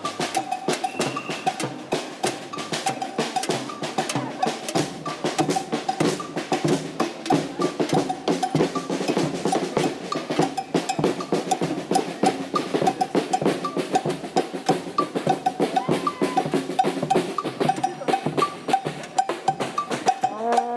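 Fast, steady drumming with snare and bass drum, many hits a second.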